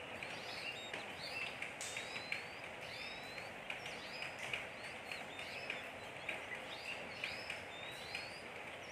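Oriental magpie-robin chirping, short high curved notes repeated about every two-thirds of a second over a steady background hiss.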